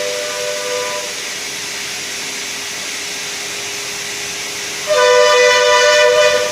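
Wet-and-dry vacuum cleaner motor running with a steady hiss, while a two-note horn sounds twice: briefly at the start, and louder for about a second and a half near the end.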